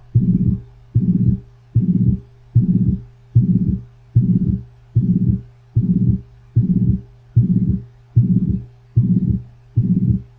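Recorded heart sounds, as heard through a stethoscope: a regular heartbeat of about 75 beats a minute. Each beat starts sharply and trails off, over a steady low hum.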